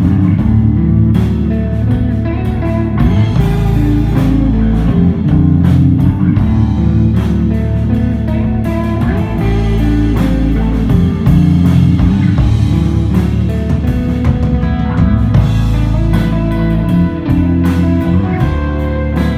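A desert rock band playing live: electric guitar over held bass notes and a drum kit with regular cymbal strokes.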